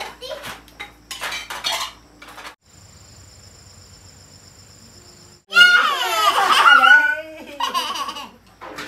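Dishes and a spoon clinking during a meal, then about halfway through a young child's loud outburst of voice with a strongly wavering pitch, lasting under two seconds, followed by more clinks.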